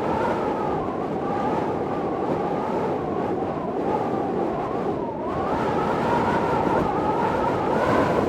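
Storm wind blowing steadily, with a wavering whistle through it that dips in pitch about five seconds in and grows louder near the end.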